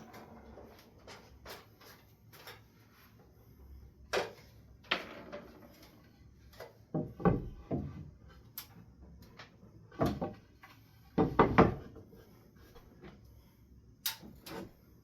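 Irregular knocks, clunks and clicks of objects being handled and moved around, with a cluster of heavier thumps about two-thirds of the way through.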